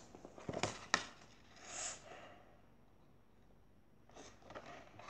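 A paperback picture book being handled and its pages turned: two sharp taps about half a second apart near the start, a brief swish about two seconds in, then faint rustling near the end.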